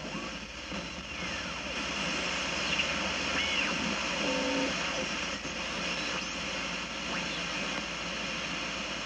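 Hallicrafters S-40-B tube shortwave receiver giving steady band static and hiss from its speaker as the bandspread is tuned across the 20-meter band. Brief whistling tones glide up and down in pitch as signals slide past the tuning.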